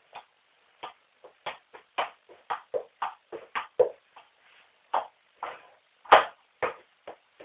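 A football being struck again and again, a run of short, dull knocks about three a second that thins out to uneven, more widely spaced hits, the hardest a little after six seconds in.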